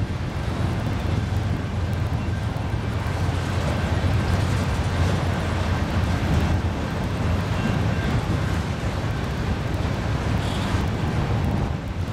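BNSF freight train passing: a steady rumble of the cars rolling on the rails.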